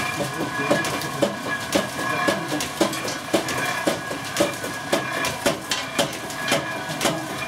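Old walnut oil press at work: a steady mechanical hum with a sharp metallic click about twice a second.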